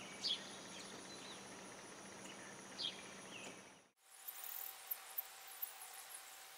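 Quiet outdoor background with a steady high-pitched hum and a few faint chirps, and soft ticks from a Sharpie marker dotting marks through the screw holes of a kayak hatch seal. The background changes abruptly about four seconds in.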